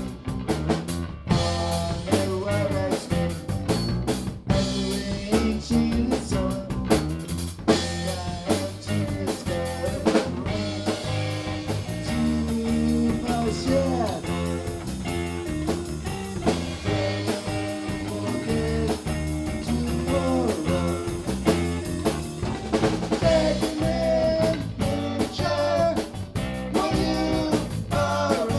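A band of drum kit, bass guitar and guitar playing a rock song at full volume, with steady drum hits and rim shots under the guitar.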